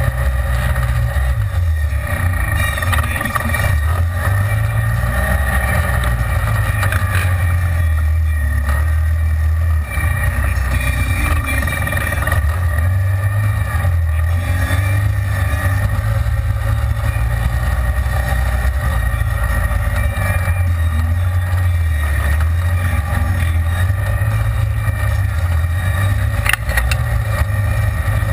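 Side-by-side UTV engine running on the move, heard from inside the open cab, its speed rising and falling repeatedly with the throttle.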